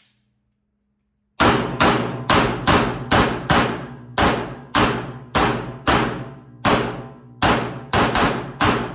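A Glock 19 9mm pistol fired in a long string of about twenty shots, starting about a second and a half in, two to three shots a second with brief pauses and a faster run near the end.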